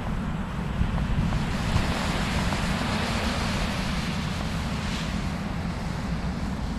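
Small surf washing onto the beach from a nearly flat ocean, a hiss of water that swells and eases about halfway through, over a steady low rumble of wind on the microphone.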